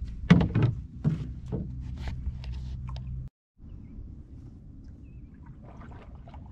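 Several hollow knocks and clunks on a canoe hull, loudest just after the start, then a sudden cut to a steady low rumble.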